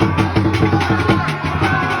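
Music with fast, busy drumming and percussion under a melody line.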